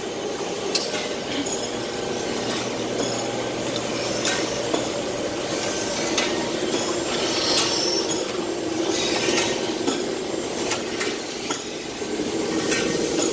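Abplanalp Ces 2-150-4S double-headed through-feed grinder running steadily while dry-grinding brake pads, with scattered clinks and knocks as the pads ride along the conveyor belt.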